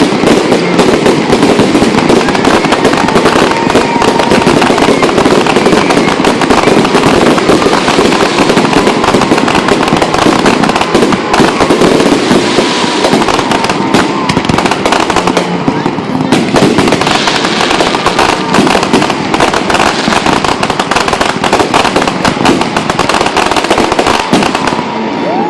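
Fireworks going off in a dense, continuous barrage, bangs and crackles running together with hardly a pause.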